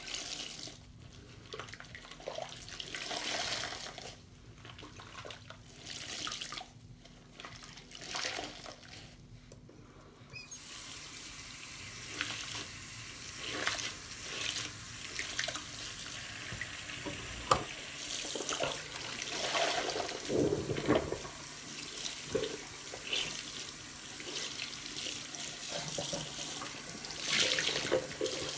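Soapy foam sponges squeezed by hand in a sink of suds: wet squelching and dripping in separate bursts. About ten seconds in, the tap comes on and water runs steadily while a layered foam sponge is rinsed and squeezed under it, with splashes.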